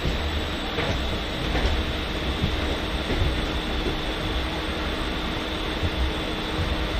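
Electric suburban local train running at speed, heard from aboard at an open doorway: a steady rumble and rush of wheels on rails, with a few sharp clicks as the wheels pass rail joints.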